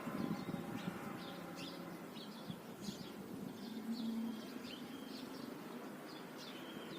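Small birds chirping: many short, high calls scattered throughout, fairly faint over a quiet outdoor background.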